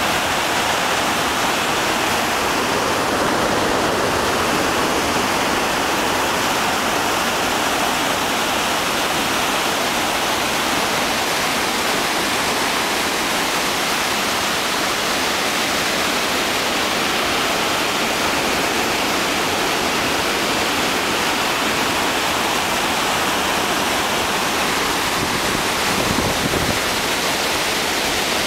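Muddy floodwater of the Reque River spilling over a river intake weir and churning white below it: a steady, loud rush of falling water from a river in summer flood.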